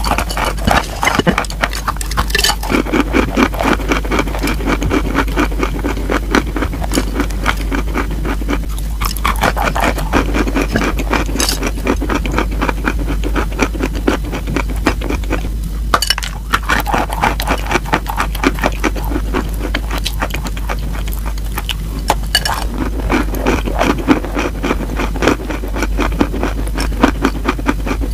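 Close-miked crunching of a slab of chalk being bitten and chewed: a crisp bite every several seconds, each followed by dense, gritty crunching as the chalk is chewed.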